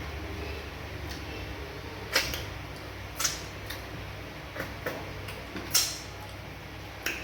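Eating sounds of fufu and banga soup: about half a dozen sharp, wet mouth smacks and clicks at irregular intervals, the loudest about two seconds in and near six seconds, over a steady low hum.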